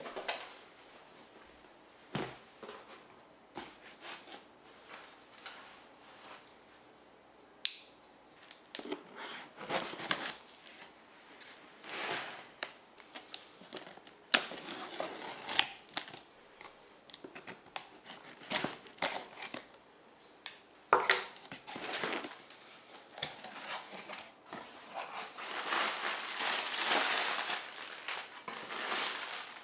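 Binocular packaging being handled and opened: rustling and crinkling with scattered clicks, a sharp snap about eight seconds in, and a longer stretch of crinkling near the end.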